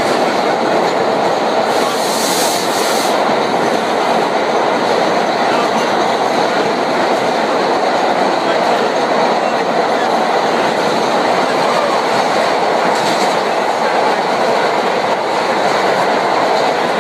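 Vintage New York City Subway 'Arnine' (R1–R9 series) car running along the track, heard from inside: a steady loud rumble and rattle of wheels and car body. There is a short hiss about two seconds in and another about thirteen seconds in.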